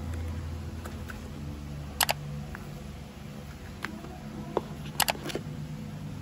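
Hands handling an iPad box's paperboard insert and power adapter: a few sharp clicks and taps, the loudest about two seconds in and a quick pair about five seconds in, over a steady low hum.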